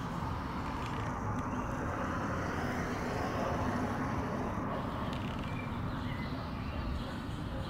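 Steady traffic rumble: an even, unbroken background noise with no distinct events.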